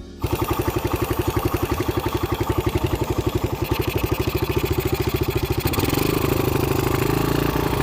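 Suzuki Raider 150 carburetted single-cylinder four-stroke motorcycle engine idling with an even, rapid pulse, picking up slightly about six seconds in.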